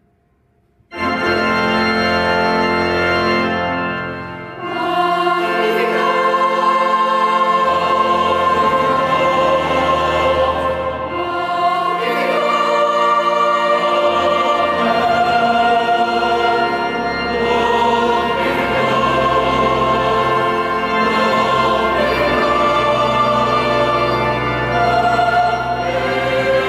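Mixed choir singing a classical piece, coming in suddenly about a second in and holding long chords, with steady low accompaniment notes underneath.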